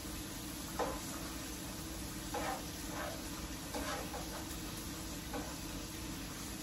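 Shrimp frying in a pan on a gas stove with a steady sizzle, and a utensil scraping and knocking against the pan about five times as they are stirred.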